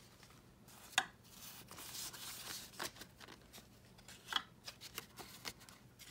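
Paper prop banknotes rustling as they are handled and stacked, with a few sharp clicks: the loudest about a second in, another couple a little past four seconds.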